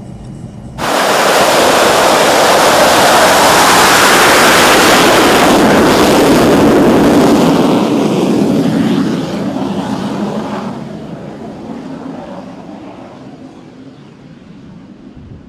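Lockheed U-2's single turbofan jet engine running at high power, a loud, even roar. It starts abruptly about a second in, holds for several seconds, then fades away steadily as the aircraft moves off.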